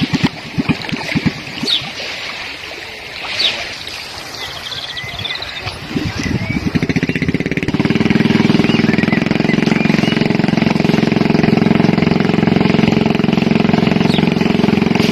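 Rushing stream water with a few short, high, rising chirps. About halfway through, a motor engine comes in and runs steadily at a low, even pitch, becoming the loudest sound.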